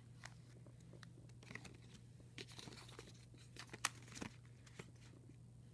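Faint rustling and crinkling of paper perfume sample cards and plastic sample packets being handled, with scattered small clicks and taps, over a steady low hum.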